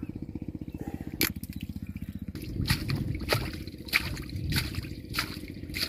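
Wet mud and shallow water squelching and sloshing, with several sharp splats and knocks, as a metal bowl is worked in the mud of a drained pond; this grows louder about two seconds in. Underneath, at first, a small engine runs with a rapid, even beat.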